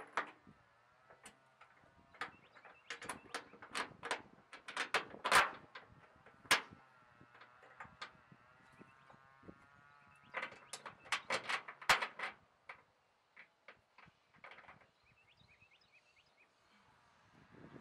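Metal bolts and hardware clinking and knocking against a steel hitch rail and the truck bed, in scattered sharp clicks that come in two clusters, one early and one past the middle.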